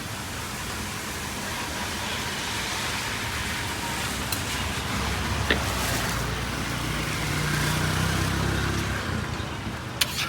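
Steady hiss of rain with street traffic noise; a motor vehicle passes, its low hum swelling from about five seconds in and fading near nine seconds. A few sharp clicks stand out, one about halfway and two near the end.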